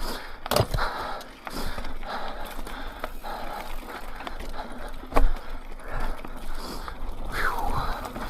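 Mountain bike rolling over a rough dirt and rock trail: uneven tyre and drivetrain noise with a few sharp knocks from bumps, and a short gliding squeal about seven seconds in.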